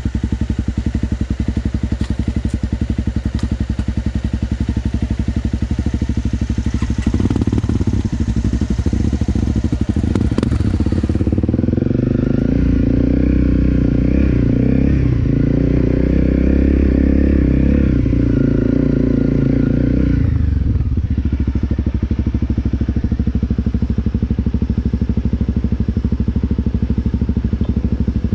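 Honda CRF250L single-cylinder four-stroke engine idling steadily, then revving and running louder under way for much of the middle, then settling back to a steady run near the end.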